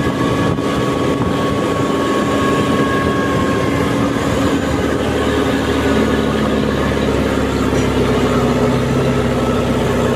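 Yanmar 1160SR turbo tractor's diesel engine, with straight exhaust, running steadily under load while driving, with a thin high whine that fades out about four seconds in. The deeper engine note grows stronger in the second half.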